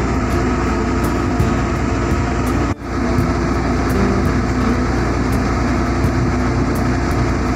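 Fast boat's engines running steadily under way, with the rush of wind and water over the hull; the sound drops out briefly near three seconds in at a cut.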